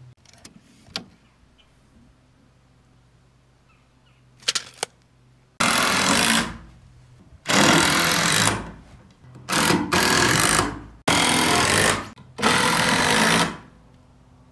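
Cordless impact driver driving screws into wooden form lumber, in five bursts of about a second each, after a few light clicks and knocks.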